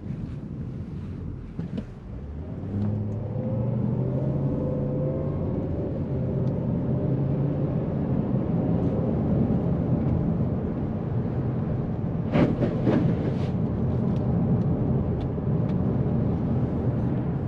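Engine and road noise inside the cabin of a 2007 Volvo S80 with its 4.4-litre V8: quieter for the first couple of seconds, then the engine picks up with its pitch rising as the car accelerates, before settling into a steady cruise. A few sharp knocks come about three-quarters of the way through.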